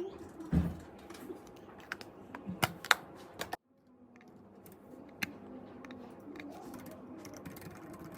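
Scattered sharp clicks and taps. About three and a half seconds in, the sound cuts off abruptly, then a steady low hum follows with a few faint clicks.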